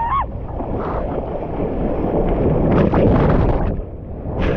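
Ocean surf: a breaking wave and rushing, churning water, loudest about three seconds in, with wind rumbling on the microphone.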